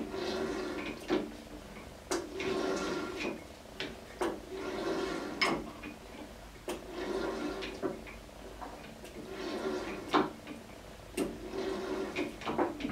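Steel hand tools worked against the spindle of a Standard Modern 10-inch lathe during a spindle-bearing replacement: about a dozen sharp metallic clicks and knocks, between stretches of a second or so of scraping, rattling metal with a slight ring.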